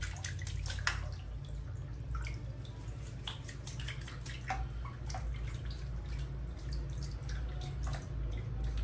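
Water dripping and lightly splashing in a plastic bath basin as a hand scoops water over a bathing baby monkey, heard as many small irregular drips and plops over a low steady hum.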